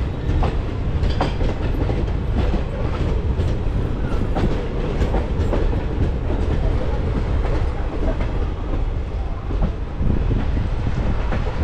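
Express passenger train running on the line: a steady heavy rumble with irregular clickety-clack of the wheels passing over rail joints.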